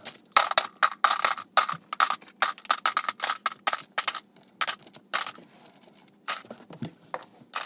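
Wooden toy blocks clacking against each other and into their bucket as they are gathered up: a fast, uneven run of sharp knocks that thins out toward the end.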